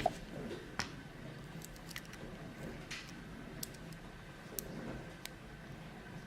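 Faint metallic clicks and scrapes of a lock pick and tension wrench working the pins inside a heavy-duty Brinks padlock, a handful of scattered ticks a second or so apart.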